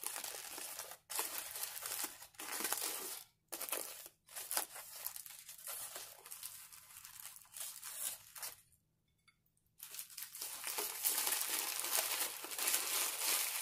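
Crinkling and rustling of a foil sandwich wrapper and its inner paper being unfolded and then crumpled by hand, in stops and starts with a quiet second about nine seconds in.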